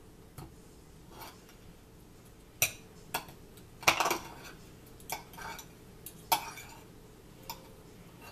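Cutlery clinking and scraping against plates as people eat. There are about ten sharp, irregular clinks, and the loudest is a cluster about four seconds in.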